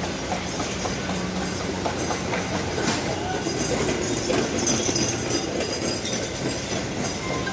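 Steady background din of a busy market: a dense mix of distant voices, footsteps and scattered clatter, with occasional sharp clicks.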